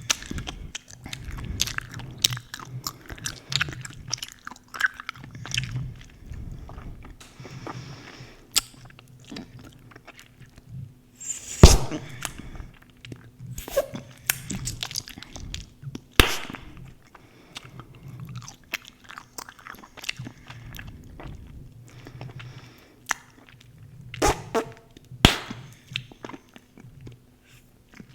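Close-miked gum chewing: a steady run of wet smacks and clicks. Twice a loud sharp snap of gum stands out, the louder one about halfway through.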